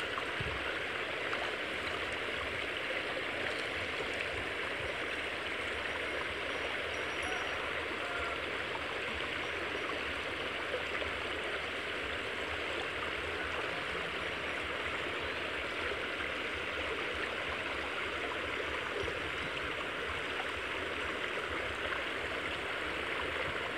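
Shallow creek water rushing steadily through a gap in a fence of stakes and branches, an even, unbroken rush.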